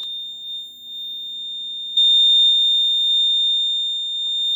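Notifier AFP-200 fire alarm control panel's built-in piezo sounder giving a steady, continuous high-pitched tone, louder about two seconds in. It signals that the panel has gone into alarm after the pull station was activated.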